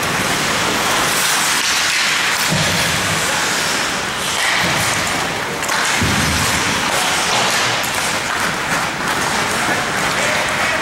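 Steady, noisy din of an ice hockey game in progress inside an arena, skates and sticks on the ice under the general arena noise, with a dull low thud about two and a half seconds in and another around six seconds.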